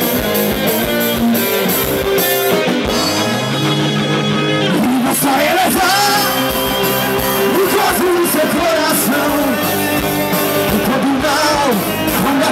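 Live rock band playing the instrumental intro of a song: distorted electric guitar, bass and drums. A low note slides up in pitch about three seconds in.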